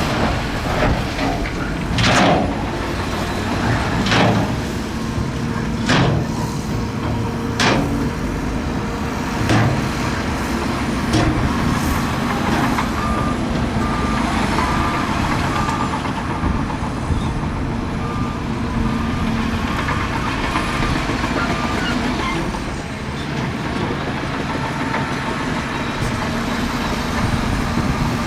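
Diesel engines of heavy earthmoving machinery running steadily under work. Sharp knocks come about every two seconds in the first half. A reversing alarm beeps for a few seconds in the middle.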